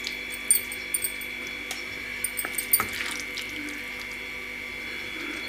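A serving spoon tapping and scraping on a plate as pasta is dropped onto it: a handful of short sharp clicks in the first three seconds, over a steady high-pitched hum.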